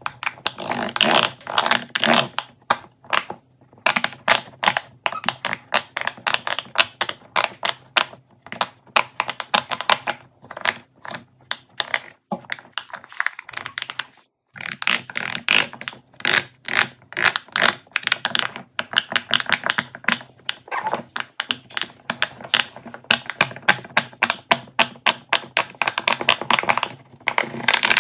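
Fidget toys being pressed and handled, making rapid runs of small sharp clicks and pops, several a second, with a short pause a little before halfway.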